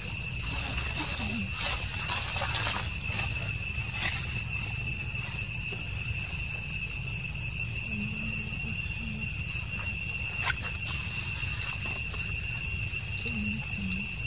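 Forest ambience dominated by insects chirring in a continuous high-pitched drone, over a steady low rumble. Scattered light ticks and crackles come in the first few seconds.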